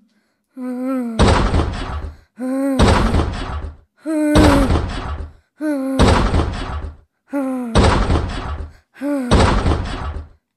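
A voice hooting like a monkey about six times in a steady rhythm, each hoot running into a loud rattling bang, as of metal cage bars being shaken.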